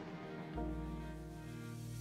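Korean pop song from a music video playing low, with sustained chords; a deep bass note comes in about half a second in.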